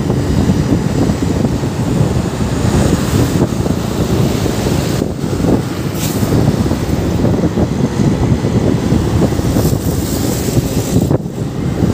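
Steady wind and road noise from riding a motorcycle, with wind on the microphone and passing traffic. The noise dips briefly about five seconds in and again near the end.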